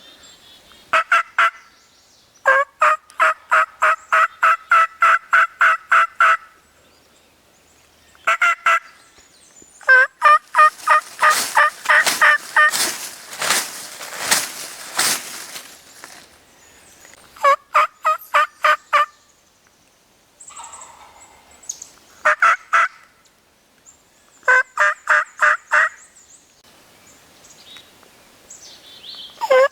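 Wild turkey yelping: repeated runs of evenly spaced, clear yelps at about four a second, some runs short and one long. A harsher, louder stretch of rapid calling comes in the middle.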